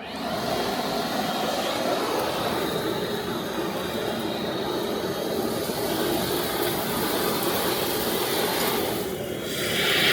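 Depureco ECOBULL TAN industrial vacuum's 480-volt three-phase side channel blower comes on abruptly and runs with a loud, steady rushing noise. Near the end the sound dips briefly, then a louder, higher hiss follows.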